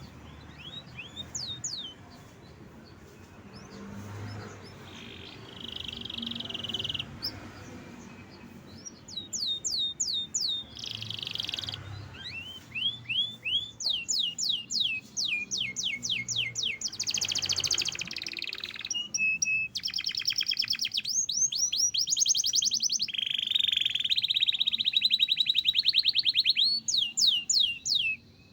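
Canary singing a long, varied song: runs of quick down-slurred whistles and buzzing rolled trills, sparse at first, then louder and almost continuous through the second half, stopping abruptly near the end.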